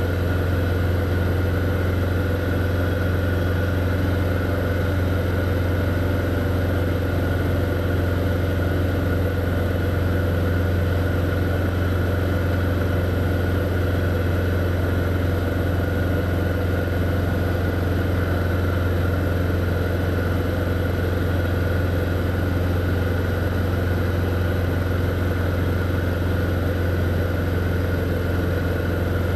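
Single-engine light aircraft's engine and propeller droning steadily at constant power, heard inside the cockpit.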